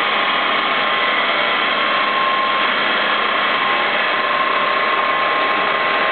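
Machinery of a used engine oil refining plant running: a steady mechanical whir with several constant whining tones, from motors, pumps and the cooling tower fan.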